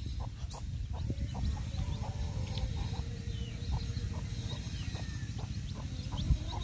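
Hen clucking in short pulses while her young chicks peep in short, high, falling cheeps, over a steady low rumble. A single low thump comes near the end.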